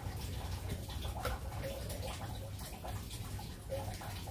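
Water trickling, over a steady low rumble and scattered light clicks.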